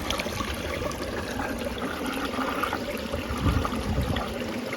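Water flowing steadily, with a brief low rumble about two-thirds of the way through.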